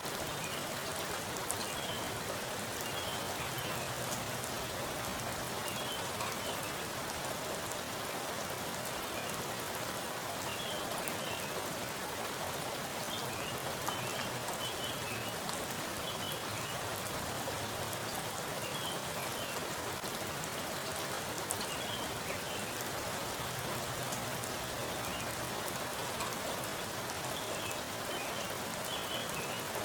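Heavy rain falling onto a pool of standing water: a steady hiss of drops striking the surface, with many small separate splashes ticking through it.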